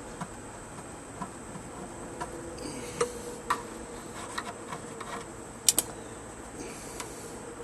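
Irregular small clicks and snaps of brittle old wood-grain vinyl cracking and breaking as it is peeled off a speaker cabinet, with a sharp double snap about three quarters of the way through.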